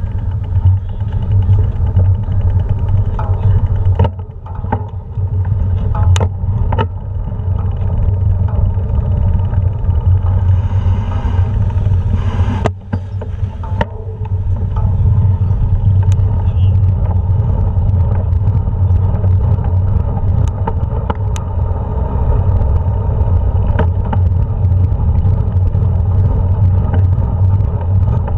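Steady low rumble and rattle of wheels rolling over cobblestone paving, heard through a vehicle-mounted camera, with scattered sharp clicks and knocks.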